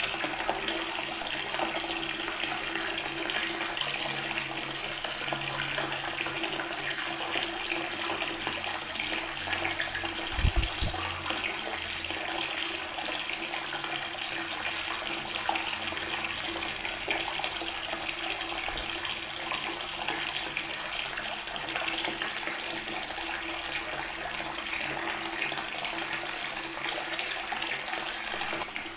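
Water tap running steadily, its stream splashing onto natural stone, a constant hiss. A brief low thump breaks in once about ten seconds in.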